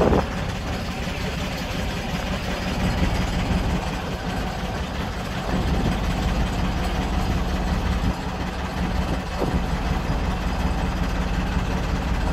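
A boat's engine running steadily with a low, even hum.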